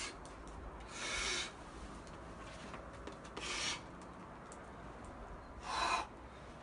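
Three short rasping hisses about two and a half seconds apart from a boulderer working through hard moves near the top of a rock boulder.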